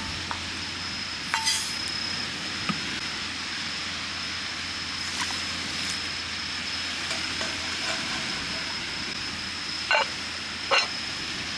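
Food sizzling steadily in a hot pan, with a few sharp scrapes or clinks of a cooking utensil, one early and two close together near the end.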